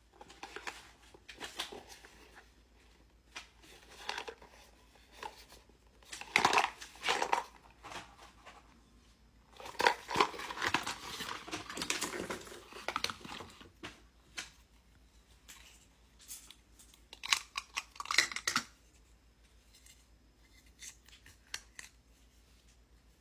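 A magnetic baby cabinet lock set and its packaging being handled: irregular bursts of plastic rustling, crinkling and clicking, with pauses between. It is busiest about six to seven seconds in and from ten to thirteen seconds in.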